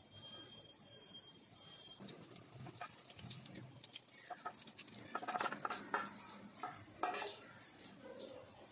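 Spoonfuls of corn-fritter batter frying in hot oil in a pan: a crackling sizzle that builds from about two seconds in. Light clinks of a spoon against a steel bowl come through the sizzle.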